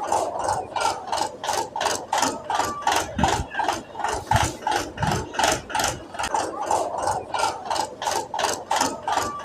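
RC car crossing a wooden plank bridge: an even clatter of about three to four clacks a second as the tyres roll over the planks, with a few deeper thumps.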